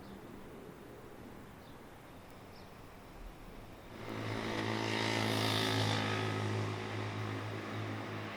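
Faint background hum, then about four seconds in a vehicle's engine noise swells to a loud peak and slowly fades.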